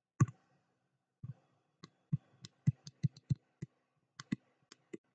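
Irregular sharp clicks and taps of a stylus touching down on a touchscreen as a word is handwritten, about a dozen over a few seconds.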